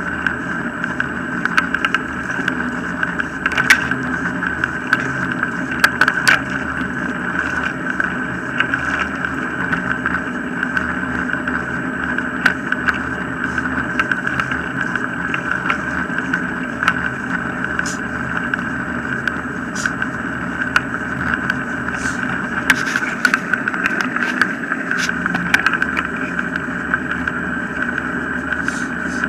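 Wheels of a dog-drawn mushing rig rolling on tarmac: a steady rolling hum with scattered ticks and rattles.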